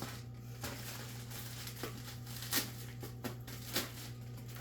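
Light clicks and rustling as the canister filter's plastic media tray is opened and its contents handled, about half a dozen separate clicks over a steady low hum.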